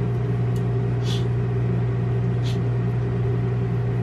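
A steady low mechanical hum runs throughout. Metal tongs make a couple of faint scrapes and clicks as a pork roast is lifted out of a crock pot.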